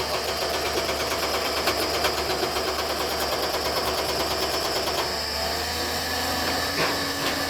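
Excavator-mounted hydraulic rock breaker hammering rock with rapid, even blows over the excavator's running engine; the hammering stops about five seconds in and the engine keeps running, with a couple of light knocks near the end.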